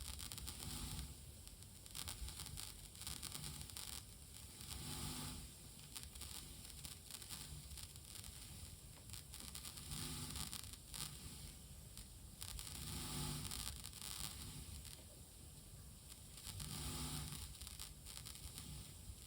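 Crackling, popping noise from the left-channel ST2 output of a Tascam LM-8ST mixer, played through a Presonus R65 monitor as the volume knob is worked; the crackle swells and fades in waves several times over a low hum. It is a fault inside the mixer, not the cable or speaker, which the owner puts down to the knobs or possibly the amplifier.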